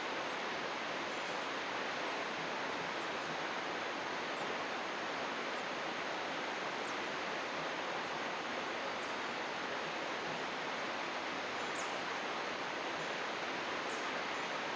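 Steady rush of flowing water, like a river or stream, at an even level, with a few faint, brief high bird chirps scattered through it.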